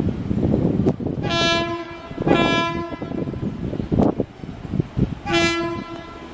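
Horn of an Apolo diesel passenger railcar sounding three blasts as it approaches: two about a second apart, then a third a few seconds later. Each blast is a steady, unwavering tone.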